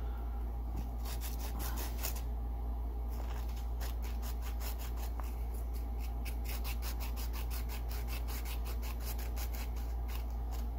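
A tiny metal contact from a CB microphone's push-to-talk switch rubbed back and forth on sandpaper by hand to scour corrosion off it. It makes short scratching strokes that settle into a quick, even rhythm after a few seconds, over a steady low hum.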